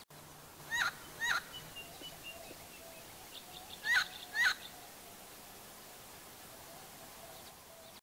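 Helmeted friarbird (koak-kaok) calling: two harsh two-note calls, the first about a second in and the second about four seconds in, each note short and dropping at the end.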